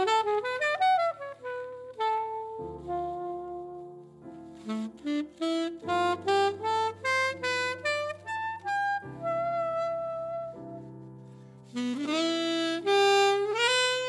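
Alto saxophone and grand piano playing a jazz ballad. The sax plays a quick rising run at the start, a line of short notes, a long held note near the middle, and another rising run about twelve seconds in, over sustained piano chords.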